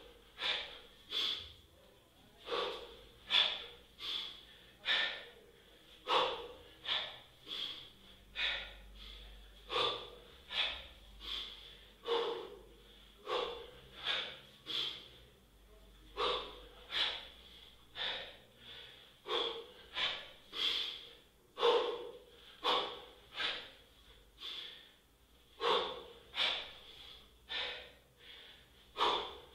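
Forceful breathing of a man doing one-arm kettlebell snatches: short, sharp breaths a little more than one a second, often in pairs, in a steady rhythm.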